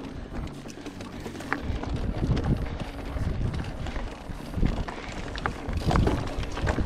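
Orbea Oiz full-suspension mountain bike descending rocky, gravelly singletrack: tyres rumbling over loose stones with irregular sharp rattles and knocks from the bike, and wind on the microphone.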